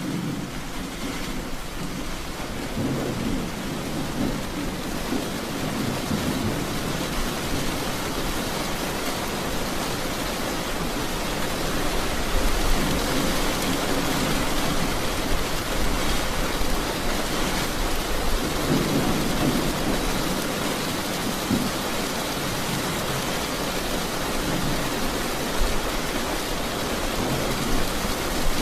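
Steady rain hissing, with low rumbles of thunder rolling in several times. It grows louder over the first several seconds.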